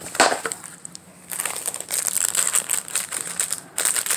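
Clear plastic crinkling and rustling as a diamond-painting canvas is turned over and bags of rhinestone drills are handled. There is a short rustle at the start, then a dense crackle from about a second in, with a brief break near the end.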